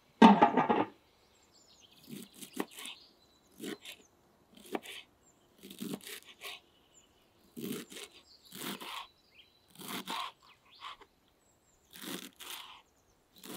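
An aluminium lid set onto a large aluminium cooking pot with a ringing clank just after the start. Then a knife chopping fresh dill on a wooden cutting board in short strokes, irregularly, about one or two a second.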